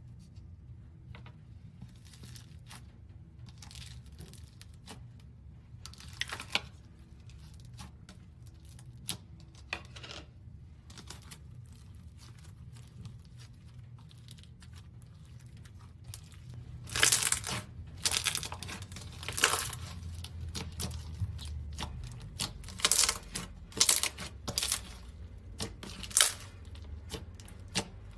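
Slime being squeezed and stretched by hand, giving sharp crackling and popping clicks. They are sparse at first and come thick and loud for the last ten seconds or so.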